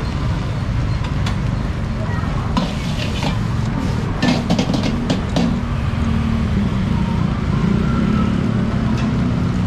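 Egg fried rice being cooked in a wok: a quick run of metal clanks from a spatula striking the wok about four to five seconds in, over a steady low rumble.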